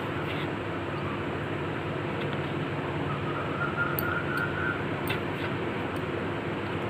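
Steady background hum and hiss, with a faint high tone about halfway through and a few light clicks.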